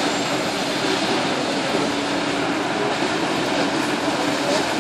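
Steady engine drone from fire engines running at a fire scene.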